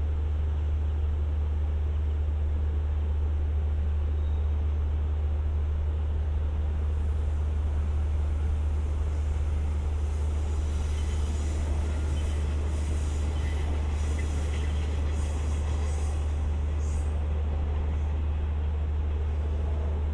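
Indian Pacific train's diesel engines idling with a steady low hum; a faint high hiss comes and goes in the middle.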